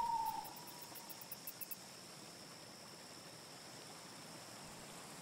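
Faint forest ambience: a steady soft hiss, with a fast run of high chirping ticks for the first second or two and a faint tone fading out about a second in.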